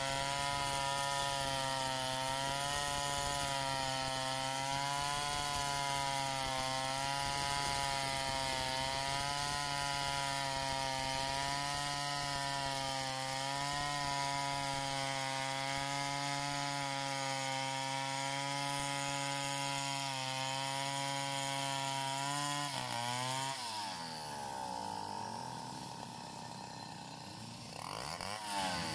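Two-stroke chainsaw running at high revs, ripping lengthwise through a log to cut boards; its pitch wavers slightly as the chain bites. About 23 seconds in the throttle is released and the engine falls to a quieter idle, then revs up again near the end.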